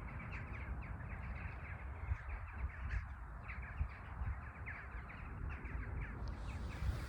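Jackdaws and rooks calling, many short overlapping caws, over a low steady rumble.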